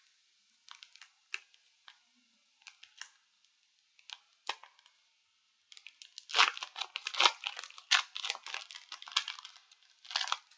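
Foil wrapper of a Yu-Gi-Oh! booster pack crinkling with a few light ticks, then torn open in a dense run of tearing and crackling about six seconds in, with a short last rip near the end. The pack is really hard to open.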